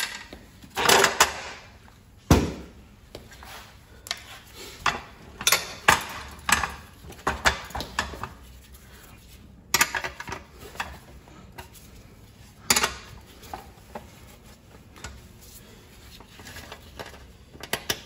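Irregular metallic clinks, taps and knocks of hand tools and loose metal parts being handled while working on a pressure washer, with one heavier thump a couple of seconds in.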